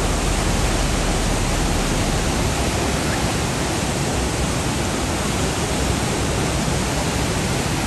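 High Force waterfall rushing steadily, a continuous even wash of falling water with no change in level.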